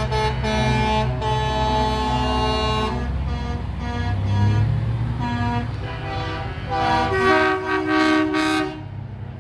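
Semi-truck air horns blowing long multi-tone chords over the low rumble of diesel trucks rolling past. The loudest blasts come about seven to nine seconds in.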